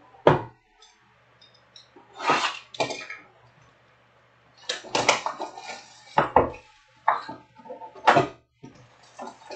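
Foil-wrapped trading-card packs and cardboard card boxes being handled on a table. There are irregular crinkles, rustles and light knocks as packs are stacked and boxes moved, over a faint steady low hum.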